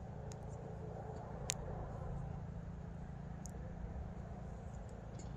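Outdoor ambience at a football pitch: a steady low rumble with a faint background haze, and one sharp click about a second and a half in.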